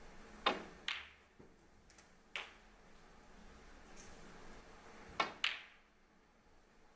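Snooker balls clicking on a match table: the sharp click of the cue tip on the cue ball and then of ball on ball, about half a second in and again about five seconds in, with a single click between them.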